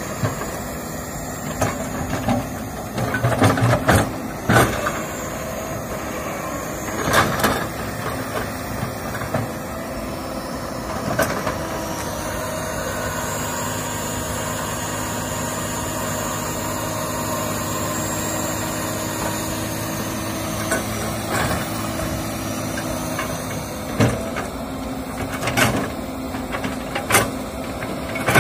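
Komatsu PC200 excavator's diesel engine running steadily under load, with scattered knocks and crunches as the bucket digs into soil and brush, several near the start and a cluster near the end. A high whine rises and falls in the middle.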